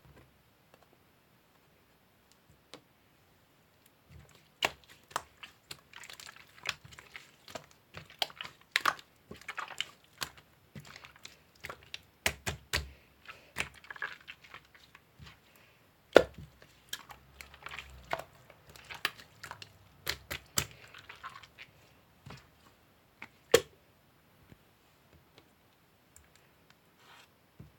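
Irregular clicks, taps and crinkly rustling of small objects being handled, starting a few seconds in and thinning out near the end, with a couple of sharper louder clicks.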